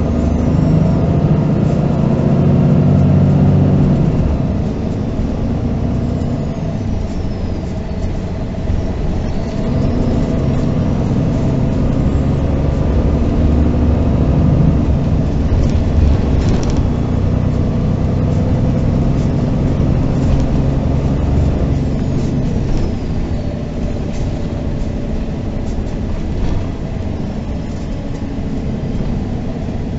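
Six-cylinder diesel engine of a MAN NG 313 articulated city bus, heard from inside the passenger cabin while driving. The engine note swells and falls and steps in pitch several times, with a few brief clicks and rattles about sixteen seconds in.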